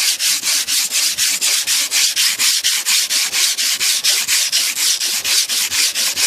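Sandpaper worked by hand in quick back-and-forth strokes, about five a second, over the painted steel body of a 1988 Cadillac DeVille, scuffing the old paint so new paint will stick.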